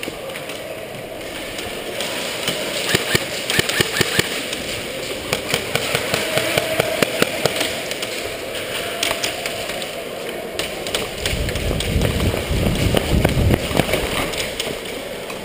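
Airsoft guns firing: irregular strings of sharp clicks and snaps, echoing in a large warehouse. Near the end a low rumble of movement against the head-mounted microphone takes over as the wearer moves quickly.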